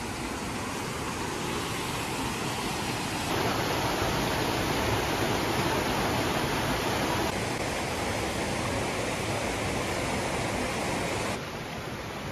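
Waterfall rushing: a steady roar of falling water that jumps louder about three seconds in and drops back in two sudden steps later on.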